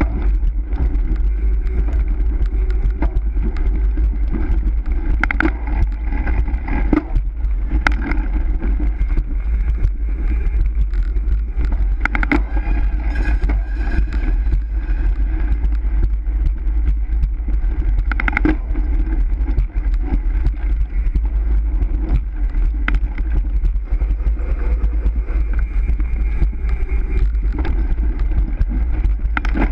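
Wind rushing over the microphone of a camera on a racing road bike, with the tyres rumbling steadily over a concrete parking-garage floor. A few brief sharp clicks or squeaks break through now and then.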